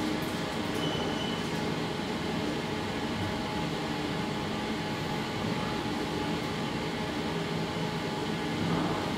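Traction elevator car travelling down its shaft, with a steady running hum and rumble.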